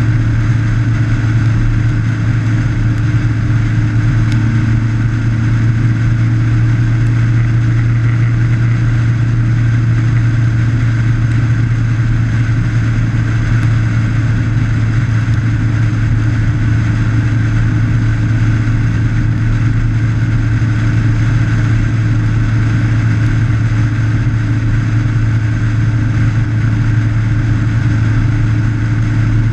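Motorcycle engine running at a steady cruising speed, heard from a camera mounted on the bike's fairing: a constant low drone that holds one pitch throughout, with wind and road noise rushing over it.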